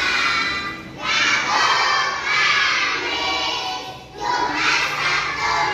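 A group of children shouting together, in loud stretches broken by short pauses about a second in and again near four seconds.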